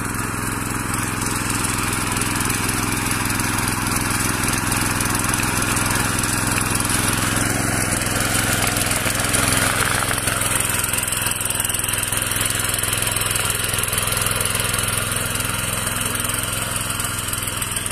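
Small engine of a mini power weeder (walk-behind rotary tiller) running steadily while its tines till dry soil.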